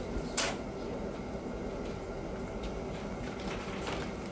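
Steady low background hum of a small room, with a short rustle about half a second in and a few faint ticks.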